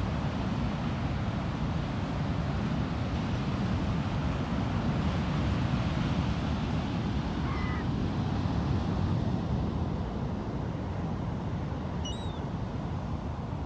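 Steady rush of wind and ocean surf, with two faint short bird calls about two-thirds of the way through and again near the end.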